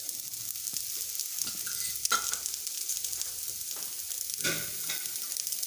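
Rice and urad dal batter pancake frying in oil on a tawa: a steady crackling sizzle, with a couple of brief knocks about two and four and a half seconds in.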